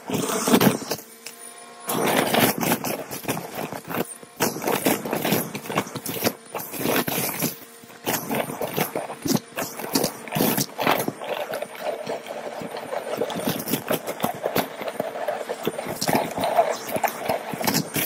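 Vacuum cleaner running over a shag rug covered in confetti, sequins, beads and paper scraps, with dense crackling and rattling as the debris is sucked up over a steady motor whine. The crackling thins out briefly a few times between passes.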